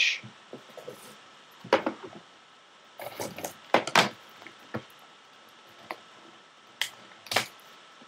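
A foil-wrapped trading card pack being handled on a wooden desk: a few short crinkles, clicks and taps at irregular moments, the loudest pair near the end.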